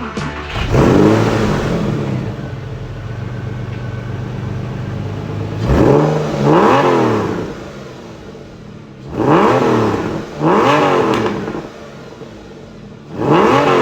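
Porsche 996's 3.4-litre flat-six breathing through Fister sport mufflers, idling and blipped by the throttle about six times, mostly in pairs, each rev rising and falling quickly back to idle.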